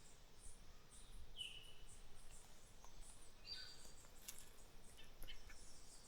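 Faint forest birdsong: a few short whistled notes and repeated high, thin chirps, with a scatter of small clicks about midway.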